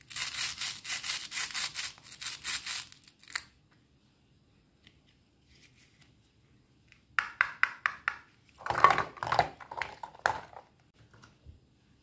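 Two halves of a plastic toy strawberry rubbed and pulled apart: a fast crackling rasp, about four or five strokes a second, lasting about three seconds. Later a quick run of clicks, then a louder scraping rub of hard plastic toy fruit.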